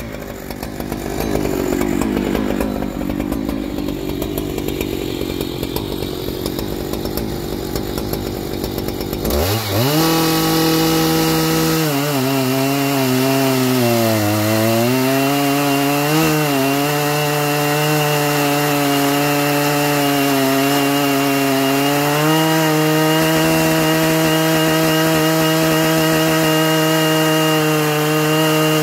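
Stock Husqvarna 3120XP, a big two-stroke chainsaw, running at full throttle while cutting into a large log. The sound changes abruptly about a third of the way in; after that the engine note sags twice under load, then holds steady and slightly higher for the rest.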